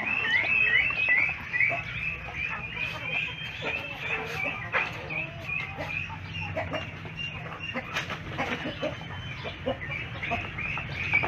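A flock of chickens clucking while feeding, with runs of rapid high chirping calls in the first couple of seconds and again near the end, and scattered short taps.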